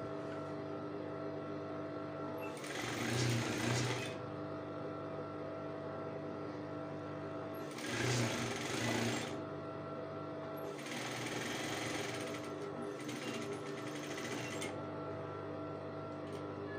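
Industrial sewing machine stitching a seam in four short runs of about a second and a half each, with its motor humming steadily between them.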